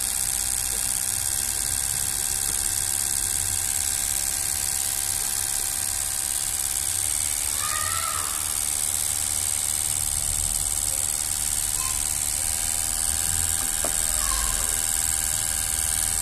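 Fuel injector test bench running, its injectors spraying test fluid under pressure into graduated cylinders: a steady hiss over a low hum.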